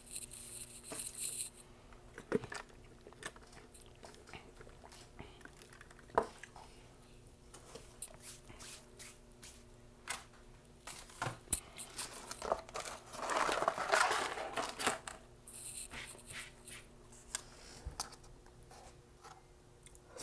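Close-up eating sounds: chewing and small mouth clicks, with rustling and crinkling of paper food packaging and a louder stretch of noise about two-thirds through. A faint steady hum sits underneath.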